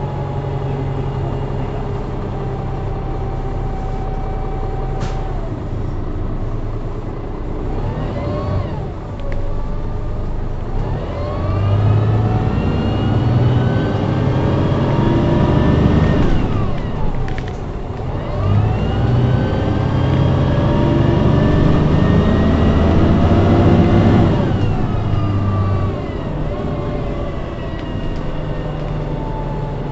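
Transbus Enviro500 bus's Cummins ISMe straight-six diesel and Voith DIWA864.3E automatic gearbox, heard from inside the passenger cabin: running steadily for about eight seconds, then pulling away with a rising whine, a gear change about seventeen seconds in, rising again, and easing off about twenty-four seconds in.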